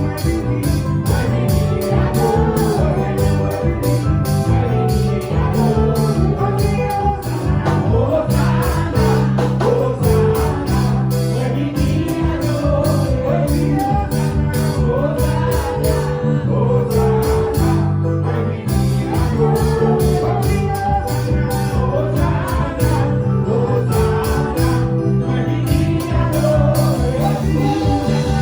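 Live gospel praise music: a band with bass and a steady beat, and a lead voice singing over it.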